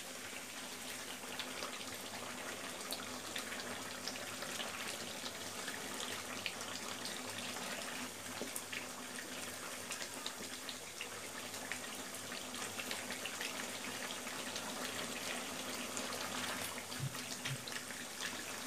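Beef curry sizzling and bubbling in its thick spiced gravy in a wok while a wooden spatula stirs it: a steady sizzle with many small crackles. The meat is being fried down in its masala (kosha), stirred so it does not stick to the bottom.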